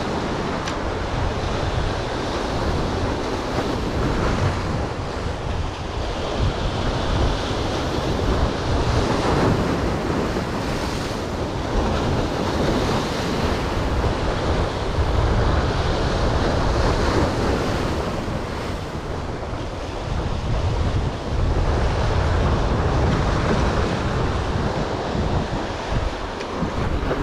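Sea waves breaking and washing over the boulders of a rock jetty, with wind buffeting the microphone.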